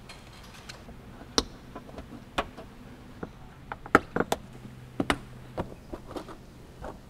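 Plastic push-in retainer clips being pressed into a truck's fender liner: a series of sharp, irregular clicks and snaps, the loudest about four seconds in.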